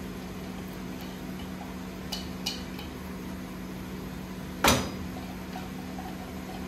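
A silicone spatula scrapes chopped carrot and green bell pepper out of a clear plastic chopper bowl into a nonstick frying pan of ground beef. There are a couple of light clicks, then one sharp knock about two-thirds of the way through, over a steady low hum.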